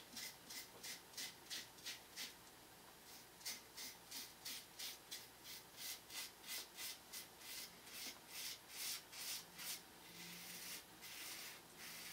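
Gillette travel double-edge safety razor with a Feather blade scraping through lathered five-day stubble in short strokes, about three a second, gliding easily over skin prepared with pre-shave oil. Near the end the strokes run together into a smoother continuous scrape.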